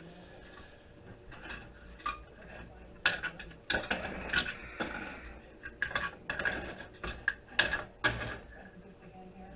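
Irregular clicking and clattering of hard metal and plastic parts being handled while a network switch is taken apart for scrap, starting about three seconds in, with the sharpest knocks then and again around seven and eight seconds in.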